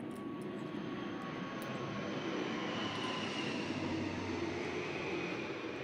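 Aircraft engine noise passing over: it swells over a few seconds and fades near the end, its pitch dropping slightly as it goes.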